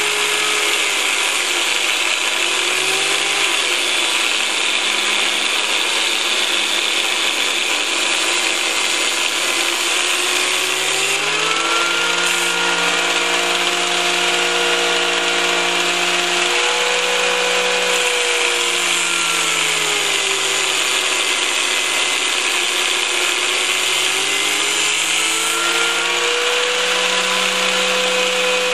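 Angle grinder clamped to a workbench as a homemade milling jig, its abrasive cut-off disc grinding into a steel channel: a loud, steady, hissing grind over the motor's whine. The whine drops in pitch and rises again several times as the steel is pressed into the disc and eased off.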